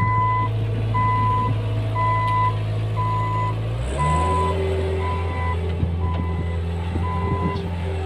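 Cat 216B3 skid steer loader running with a steady diesel drone while its reversing alarm beeps about once a second, eight beeps that stop near the end. The engine note shifts about four seconds in.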